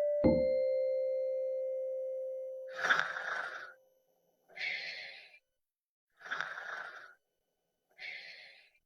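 A single keyboard note is struck and rings out, fading over about two and a half seconds. It is followed by four short hissing, breath-like bursts of noise, each about a second long, with short gaps between them.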